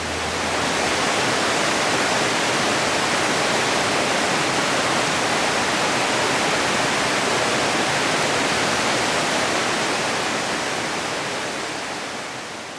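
Waterfall rushing steadily, water pouring down a steep sloping rock face. It swells in at the start and fades out near the end.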